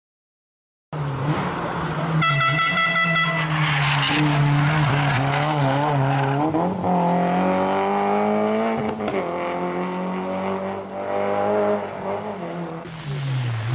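Peugeot 306 S16 rally car's four-cylinder engine driven hard through a hairpin, starting about a second in, its pitch climbing and dropping repeatedly with gear changes and lifts off the throttle. About two seconds in, a brief steady high horn-like tone sounds for just over a second.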